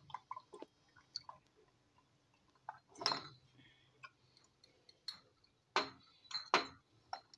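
Glass bottles and a stainless steel funnel clinking together several times, with liquid trickling through the funnel into the small glass bottles. The loudest clinks come in the second half.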